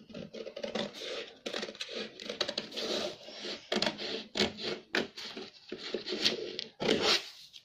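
Scissors cutting through a sheet of stiff pattern paper: an irregular run of short snips and crunches as the blades work along the marked line.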